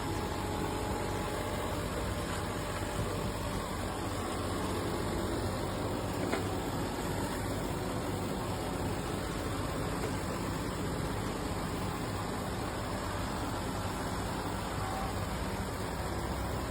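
Robot vacuum cleaner's suction motor running with a steady hum and rushing noise, with one faint click about six seconds in.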